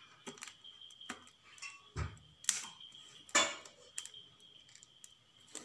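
Fingers picking and scraping crumbs off a plastic plate: scattered light clicks and taps, the loudest about three and a half seconds in, with a duller thump about two seconds in.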